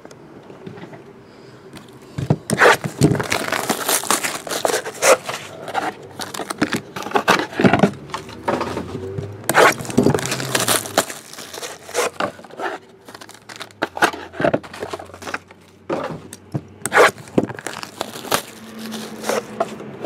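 Wrapping being torn and crinkled off trading-card hobby boxes, with cardboard lids and foil-wrapped card packs handled: irregular crinkling, tearing and scraping.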